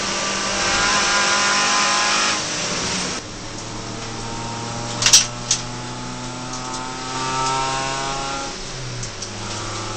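Suzuki Swift race car's engine heard from inside the cabin. It runs high and steady, drops in pitch and level about three seconds in, then climbs steadily in pitch, with a short step in pitch near the end. A sharp knock comes about five seconds in.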